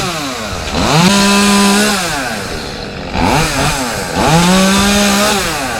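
Chainsaw engine revved up and held at high speed twice, about a second in and again near the end, dropping back toward idle in between, as it cuts the seed pods off a royal palm.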